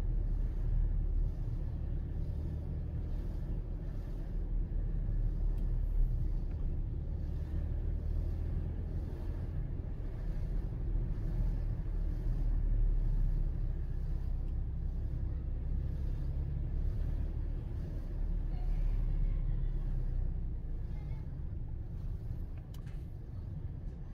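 Steady low rumble of a car's engine and tyres heard from inside the cabin while driving, with one faint click near the end.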